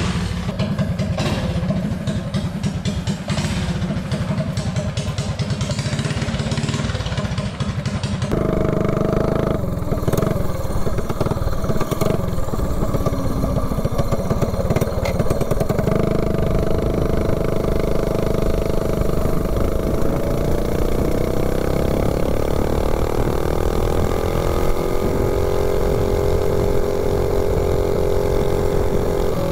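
Predator 212 single-cylinder four-stroke mini bike engine running with a rhythmic firing beat, then, after a sudden change about eight seconds in, pulling the bike along the road; its pitch climbs gradually past the middle and holds high as the bike nears top speed.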